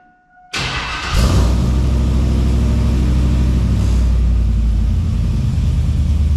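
A GMC Sierra's engine is cranked about half a second in, catches with a rev about a second in, and settles into a steady idle through a new Speed Engineering 3-inch single stainless catback exhaust. Throaty and loud, echoing in the shop.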